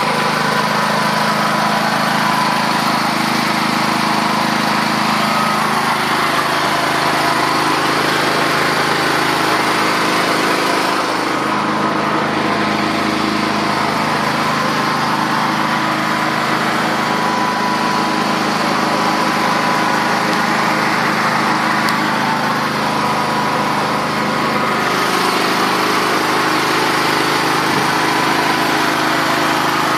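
Elitech BES 6500 EM petrol generator's single-cylinder four-stroke engine running at a steady, constant speed. For a stretch in the middle the hiss in the upper range dulls a little.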